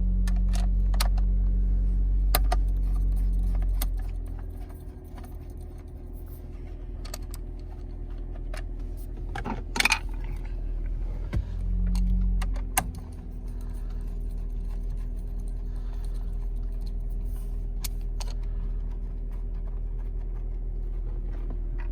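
A 2003 Pontiac Vibe's four-cylinder engine idling steadily, louder for the first few seconds and again briefly midway, with scattered clicks and jingling of keys on the ring near the steering column.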